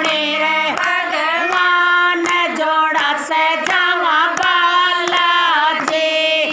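Women singing a Hanuman bhajan together, with hand claps keeping a steady beat. The singing ends on a held note near the end.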